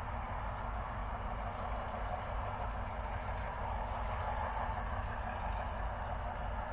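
Steady, even drone of distant diesel-electric locomotives at the head of a slow-moving grain train, with a low rumble underneath.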